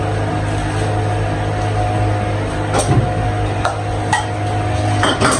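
A steady machine hum, with a few light clicks and knocks of kitchenware as a plastic bowl and pots are handled at the stove.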